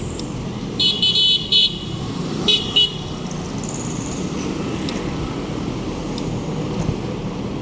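Road traffic running steadily while a horn gives short high-pitched beeps, three quick ones about a second in and two more about a second later.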